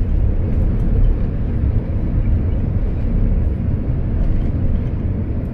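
Steady low rumble of a Boeing 787-9 heard inside the cabin as it rolls along a wet runway after landing: engine and tyre noise.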